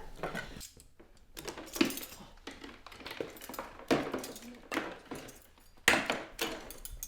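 Dishes and cutlery clinking and knocking as they are handled and stacked, a few sharp separate clatters.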